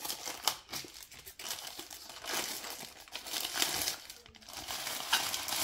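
Packaging crinkling and rustling as drone accessories are unwrapped and handled, coming and going, loudest from about two to four seconds in, with a few sharp clicks.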